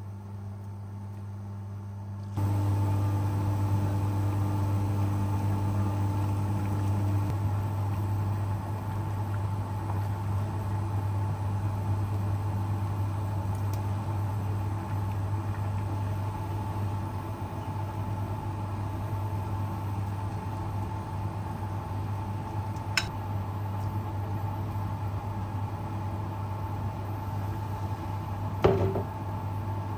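A steady low machine hum with a faint higher steady whine over it, stepping up in level about two seconds in, with a couple of faint clicks near the end.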